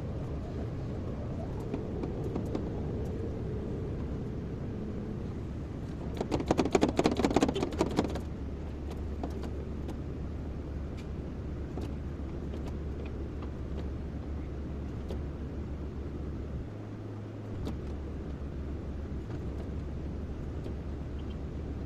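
Kobelco excavator's diesel engine running steadily. About six seconds in comes a loud burst of rapid clattering that lasts about two seconds.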